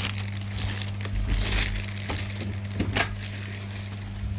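Steady low electric hum of a running pond pump, under scattered crunching and clicking handling noises, with a louder crackle about one and a half seconds in and a sharp click about three seconds in.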